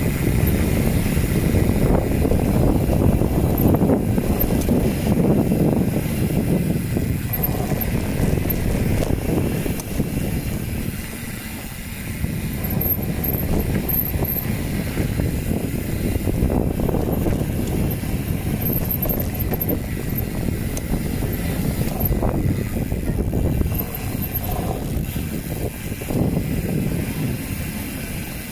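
Mountain bike riding down a dirt trail: a continuous rough rumble of tyres and wind on the microphone, easing briefly about ten seconds in.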